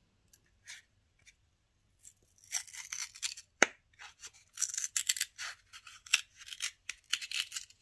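Long fingernails scratching and picking at the printed safety seal on a small glitter jar, peeling it back with crinkly scratching and tearing noises in bursts. There is a sharp click about three and a half seconds in.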